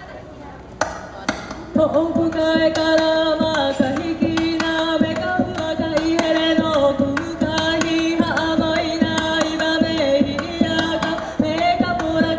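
Live Hawaiian band music for hula, with guitars, ukulele and upright bass and a singing voice holding long notes. It begins with a single plucked note about a second in and comes in fully about two seconds in, with steady strums.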